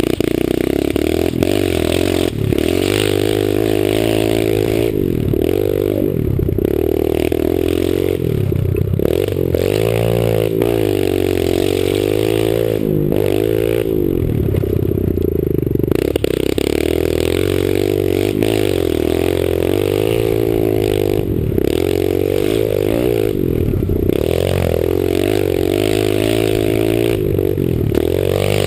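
Pit bike engine being ridden hard on a dirt track, its pitch rising and falling over and over as the throttle is opened and eased off.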